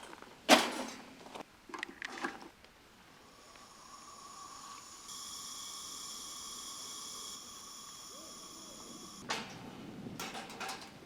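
A knock and a few clicks of handling, then a steady high-pitched electric whine for about six seconds that steps in pitch twice and cuts off suddenly, followed by more clatter.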